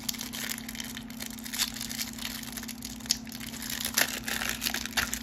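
Thin clear plastic wrapper being crinkled and torn open by hand: a run of small crackles with a few sharper snaps.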